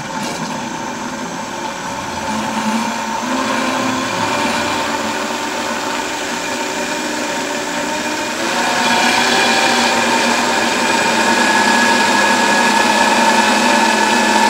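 Vitamix blender motor running while blending egg, mustard, vinegar and olive oil into mayonnaise, its whine stepping up in pitch as the speed is gradually raised. It gets louder about two seconds in and again about eight and a half seconds in.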